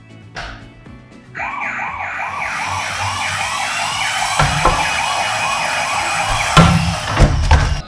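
Toy police car's electronic siren, a fast rise-and-fall wail repeating about three to four times a second. It starts about a second and a half in and cuts off suddenly at the end, with a few sharp knocks about halfway through and near the end.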